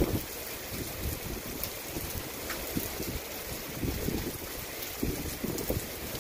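Steady rain hissing, with scattered sharp drip ticks, while wind gusts buffet the microphone in irregular low thumps.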